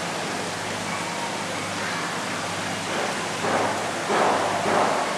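Steady hiss of room noise with a low hum, joined about three seconds in by indistinct voices.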